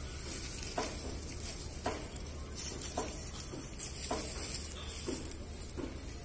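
Goats grazing in dry brush: a steady crackling rustle of dry grass and twigs, with a soft crunch or tug about once a second as they bite and pull at the stems.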